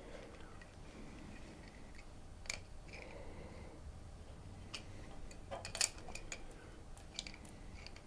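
A few light metallic clicks and clinks as a faucet supply-line nut is tightened onto its connection, with the loudest cluster a little after halfway.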